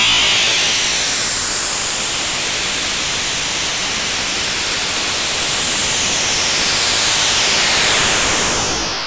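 Synthetic masking noise for tinnitus relief: a steady full hiss whose tone colour sweeps slowly, fading down in the last second.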